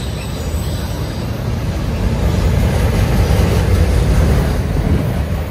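Loaded autorack freight cars rolling past on the rails: steady wheel-on-rail noise that grows louder after about two seconds.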